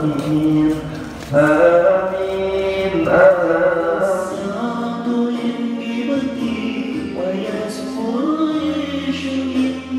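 A man's voice chanting slowly in long held notes that waver and glide between pitches, in the style of a devotional chant.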